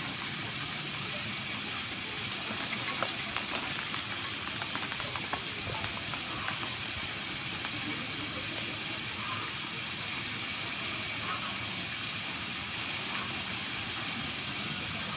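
A few faint scrapes and clicks of a hand vegetable peeler stripping the skin off a cucumber, over a steady background hiss.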